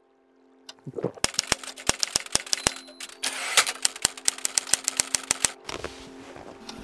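Manual portable typewriter (a Continental) being typed on: a quick run of sharp key strikes, about four a second, with a short rustling burst midway, stopping a little before the end. A low steady drone sounds underneath.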